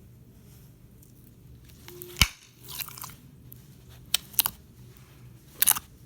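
Sticky clear slime being squished and stretched by hand, giving wet clicks and short crackly pops: a loud snap about two seconds in, a few more around three and four seconds, and a cluster near the end.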